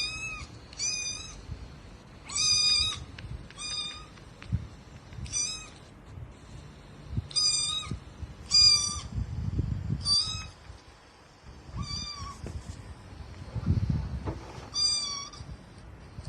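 A cat meowing over and over: about ten short, high-pitched meows, roughly one every second or so.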